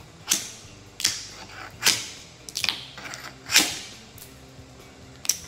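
Hammer driving a chisel into old, brittle Bondo filler on a ferrocement hull, chipping it away. About seven sharp strikes, mostly about a second apart, with the last after a longer pause.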